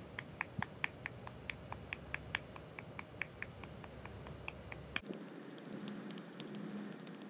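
A hand patting a cat's furry rump, short soft pats at about four to five a second. About five seconds in, the audio switches to triple-speed playback, and the pats come faster and sound higher.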